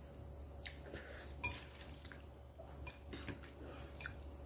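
Eating noodles with chopsticks from a ceramic bowl: wet, drippy mouth and slurping sounds with a few light, sharp clicks of utensils against the bowl, the sharpest about a second and a half in.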